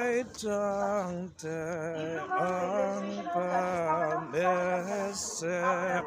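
A man singing a slow tune in long, wavering held notes, with short breaks for breath.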